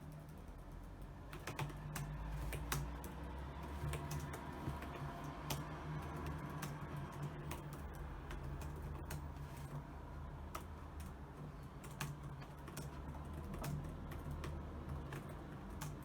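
Typing on a computer keyboard: quick, irregular key clicks, over a low steady hum.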